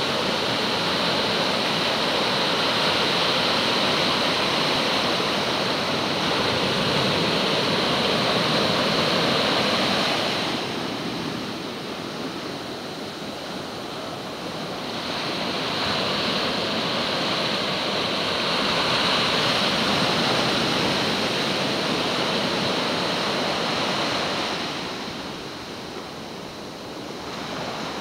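Small ocean surf breaking and washing up the beach in a steady rushing hiss. It swells and eases twice, falling off about ten seconds in and again near the end.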